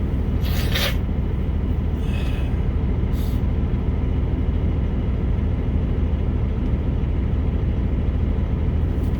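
Semi-truck diesel engine idling steadily, heard from inside the cab, with a few short hissing sounds in the first three seconds.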